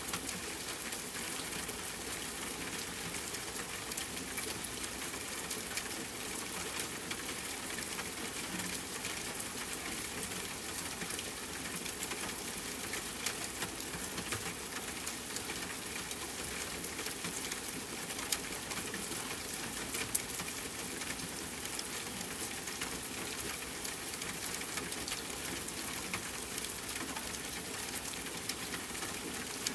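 Steady rain falling, a dense even patter of drops with a few sharper single drop hits standing out.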